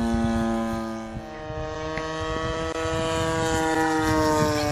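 DLE 20RA 20 cc single-cylinder two-stroke petrol engine of a radio-controlled model aerobatic plane in flight, turning a 16x8 propeller: a steady engine drone that dips in loudness about a second in, then grows louder, its pitch sliding slightly lower in the second half as the plane passes.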